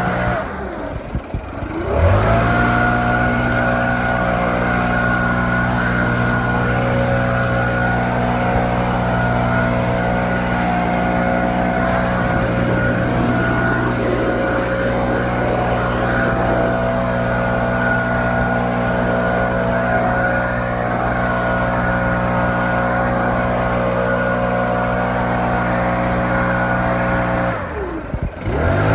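Stihl BR700 two-stroke backpack leaf blower running at full throttle with a steady pitch. The engine drops off briefly about a second in and again near the end, revving straight back up each time.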